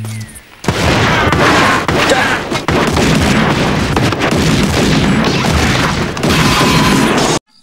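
Shootout sound effects: loud, rapid, nearly continuous pistol gunfire with booms and crashing impacts. It begins about half a second in and cuts off abruptly near the end.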